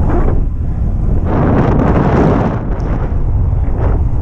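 Wind rumbling on the microphone of a camera carried on a moving bicycle, with a louder rush of noise from about one to three seconds in.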